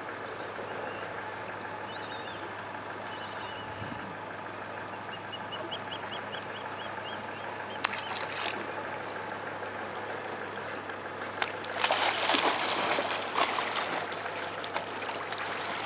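Steady outdoor background hiss with a bird chirping in quick series, then a splash in the lake water next to a crocodile about eight seconds in; a longer burst of noise follows a few seconds later.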